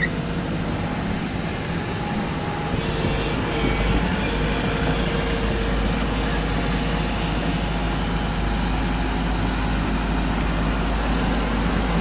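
Backhoe's diesel engine running steadily.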